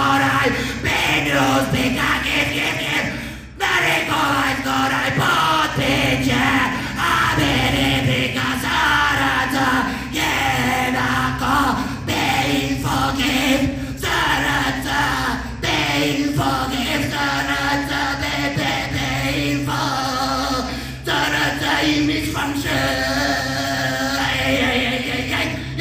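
A man's voice singing in a slow, chant-like style into a microphone, over a steady low drone.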